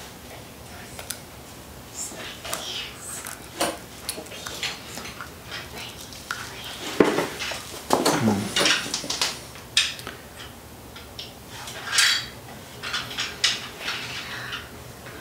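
Blue painter's masking tape being cut with a razor blade and picked and peeled off an engine cylinder head: scattered light scraping, crinkling and small clicks, with a few louder knocks and rustles around the middle.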